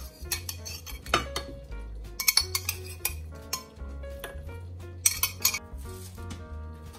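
A metal spoon clinking against a ceramic plate several times as roasted sweet potato pieces are spooned onto it, over background music.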